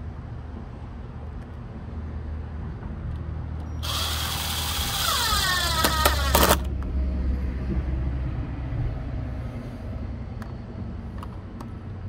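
RIDGID 18V cordless drill/driver driving a long screw through a plastic latch cover into a wooden gate post: one run of the motor, about two and a half seconds long, starting about four seconds in and stopping abruptly.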